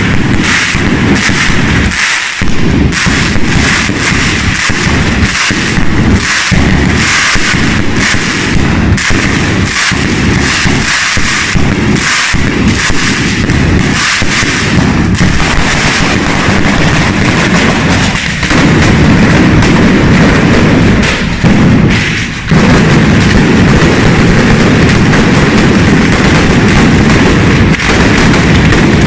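A street batteria of firecrackers going off in a continuous, rapid string of loud bangs. It grows louder and denser about two-thirds of the way through.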